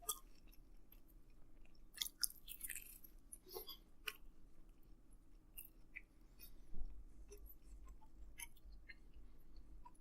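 Faint chewing of a mouthful of pizza sandwich: a scattering of small wet clicks and smacks of the mouth, irregularly spaced.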